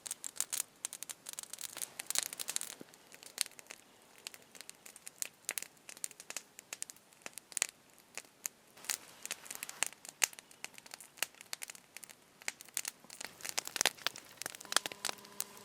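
Wood campfire crackling and popping, with irregular sharp snaps that come thickest in the first couple of seconds and again near the end.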